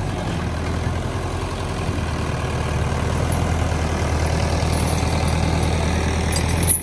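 Mahindra 475 DI tractor's four-cylinder diesel engine idling steadily.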